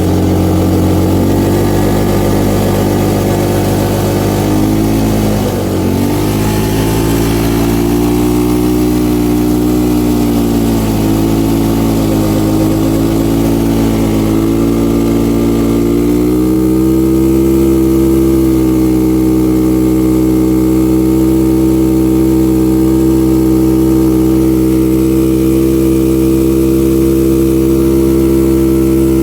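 Three-wheeler ATV engine running steadily at fairly high revs, its pitch dipping briefly about six seconds in and wavering for a while before holding steady.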